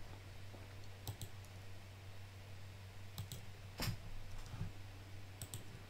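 Computer mouse clicking several times, mostly in quick pairs, with the loudest click near the middle, over a low steady hum.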